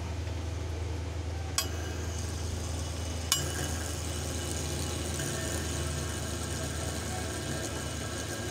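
Plastic fidget spinners being flicked into spin on a glass counter: two sharp clicks about a second and a half apart, then a steady high whir from the spinning bearings. A steady low hum runs underneath.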